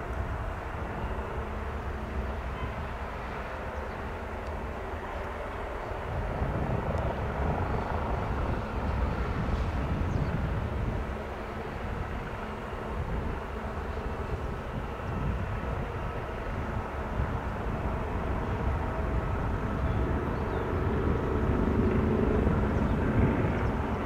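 MBB-Kawasaki BK117-A3 twin-turbine helicopter hover-taxiing low over the airfield, its rotor and turbine noise running steadily and swelling louder near the end.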